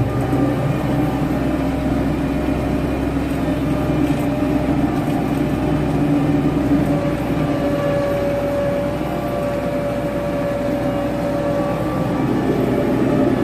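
International 3588 2+2 tractor's turbocharged six-cylinder diesel running steadily under way, heard from the cab.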